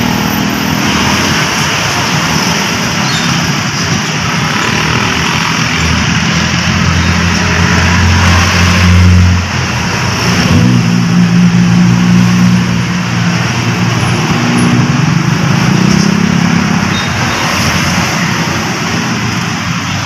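Vehicle engines running close by over steady road traffic noise. One engine note builds and cuts off suddenly about nine and a half seconds in, then another engine hum sets in a second later and runs for several seconds.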